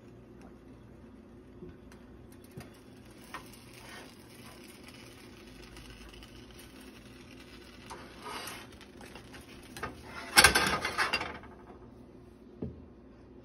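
Plastic spatula scraping and tapping against a stainless steel frying pan as a grilled cheese sandwich is worked loose and flipped, with a few light clicks and a loud burst of scraping a little past two-thirds of the way through.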